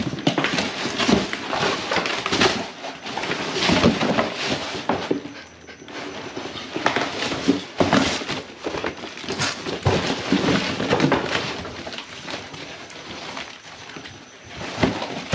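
German shepherd ripping and crunching a large cardboard box, with irregular bursts of tearing and crumpling cardboard.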